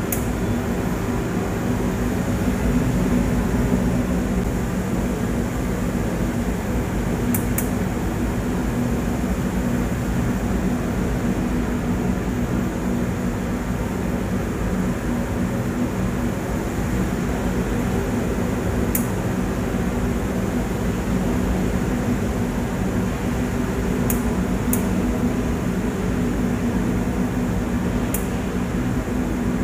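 Steady hum and air rush of a powder coating booth running while a hand-held electrostatic powder gun sprays, with a handful of faint sharp clicks.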